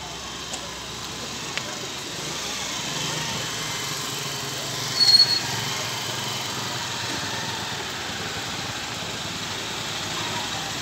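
A vehicle engine idling steadily under general street noise, with one short, sharp high-pitched squeak about halfway through.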